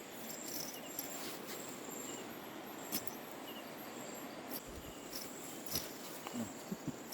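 Night insects, crickets, chirping steadily in high-pitched pulses over a low hiss of background noise, with a few faint short clicks and knocks.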